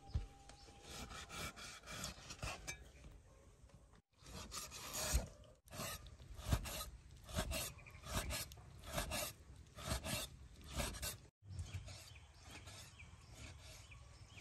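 Steel meat cleaver cutting raw pork belly on a wooden chopping board: a few soft slicing strokes, then steady chops that knock on the board a little over once a second.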